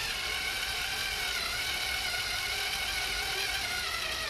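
Small cordless drill running steadily with a high whine, driving a screw.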